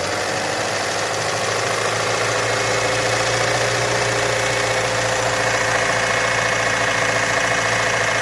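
Ford Mondeo Mk4's 2.3-litre four-cylinder petrol engine running steadily, a little louder over the first few seconds, as it is recorded for a knock in the engine.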